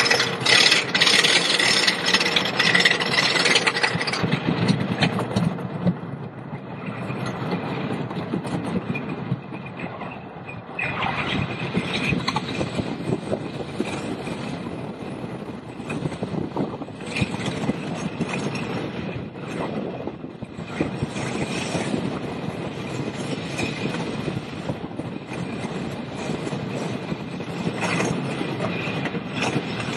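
Wooden roller coaster train running over its wooden track, a continuous rattling rumble of wheels and cars heard from a seat on board. It is loudest in the first few seconds, then rises and falls in rough surges.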